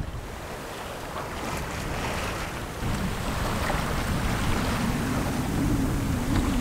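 Wind and ocean waves rushing past a sailboat under way, with wind buffeting the microphone; the rush grows louder about three seconds in.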